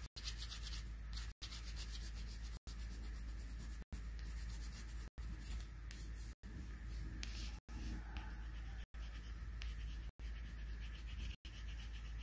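Coloured pencil scratching and rubbing across paper in quick, steady strokes, broken by brief silent dropouts about every second and a quarter.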